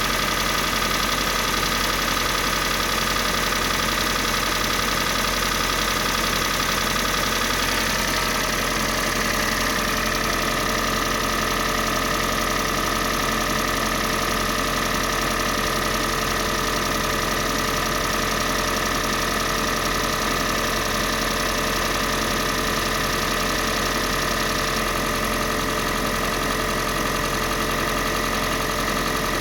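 Kia Sportage 3's G4NA 2.0-litre four-cylinder petrol engine running steadily at idle, with a knock in it.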